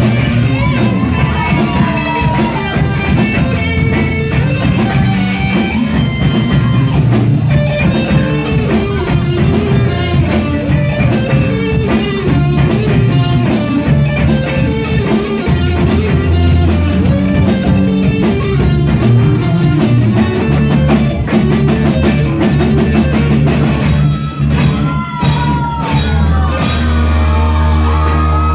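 Live rock band playing loud, with electric guitars, bass guitar and a drum kit.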